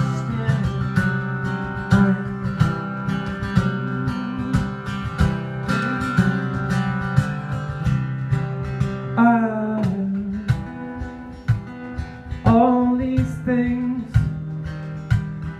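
Acoustic guitar strummed in a steady rhythm, with a man's voice coming in with long sung notes about nine seconds in and again about twelve seconds in.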